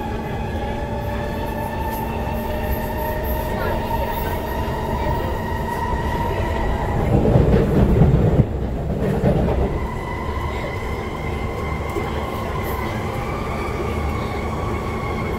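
Cabin sound of a Kawasaki Heavy Industries C151 metro train running along the line: a steady whine from the drive, slowly rising in pitch, over the rumble of wheels on track. About seven seconds in, a louder rush of noise lasts about two seconds and breaks off sharply partway through.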